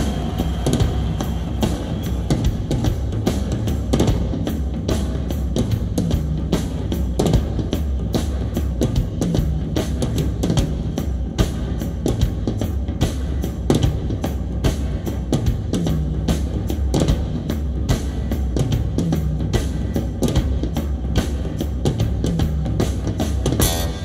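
A song with a driving drum beat and deep bass played back through DIY bookshelf studio monitors and an Infinity SL micro bandpass subwoofer, heard through room microphones.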